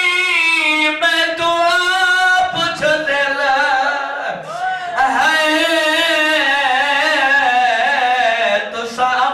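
A man singing long, drawn-out, wavering phrases in the mournful chant of a zakir's recitation. A new phrase begins about halfway through.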